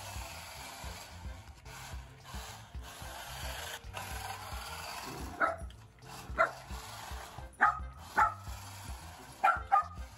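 Shetland Sheepdog barking at a small remote-control car: six sharp barks starting about halfway through, the last two in quick succession.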